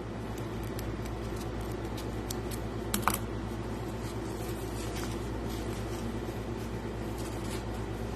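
Small clicks and handling noises from a gemstone specimen being taken out of its packing, over a steady background hum, with one sharper click about three seconds in.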